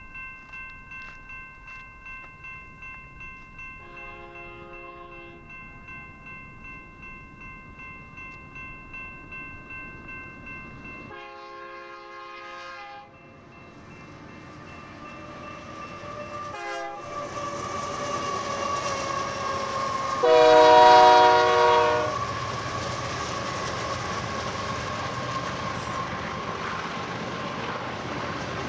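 Grade-crossing bell ringing in a steady pulse while an approaching BNSF freight locomotive sounds its air horn long, long, short, long, the signal for a grade crossing, with the last blast the loudest. Under the horn the rumble of the train rises and then holds loud as the locomotives and cars pass, with some clickety-clack of wheels on rail joints.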